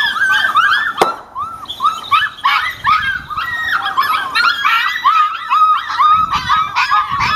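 A litter of six-week-old puppies whining and yipping excitedly, many short overlapping rising-and-falling cries in a constant chorus. One sharp crack about a second in, the facsimile gunfire the pups are conditioned to get excited by.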